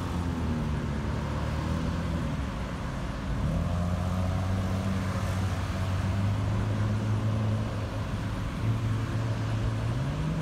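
A vehicle engine running steadily with a low hum amid passing road traffic; the hum's pitch steps up near the end.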